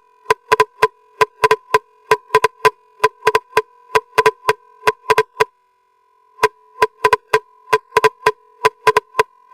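Electronic sound-check remix intro: a quick syncopated pattern of sharp, clicky synth hits, each carrying short beeping tones, with a break of about a second midway before the pattern resumes.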